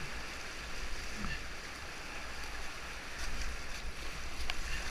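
Rushing whitewater of a class 2 river rapid heard from inside a kayak, a steady noise with a strong low rumble underneath. A brief sharp click sounds near the end.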